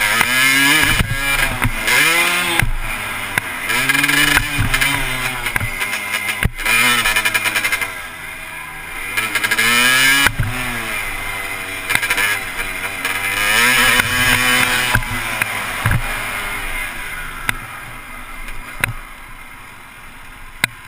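Dirt bike engine ridden hard, revving up and falling back again every couple of seconds as the rider opens and closes the throttle, with wind noise on the microphone. It quietens near the end as the bike slows.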